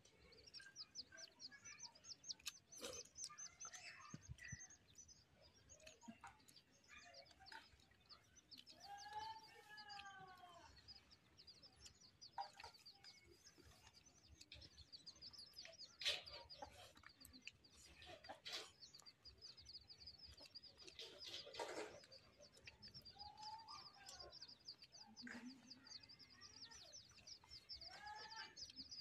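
A hen clucking, with a few drawn-out arching calls near the middle and end, over steady fast high-pitched chirping. A few sharp clicks are heard now and then. All of it is faint.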